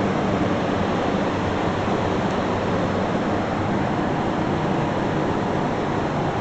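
Steady rushing noise of ventilation or cooling fans running in a large warehouse, with a faint low hum and no change throughout.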